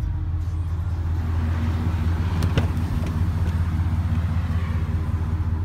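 A 2007 Chevy 2500HD pickup's V8 engine idling steadily, heard from inside the cab, with one sharp click about two and a half seconds in.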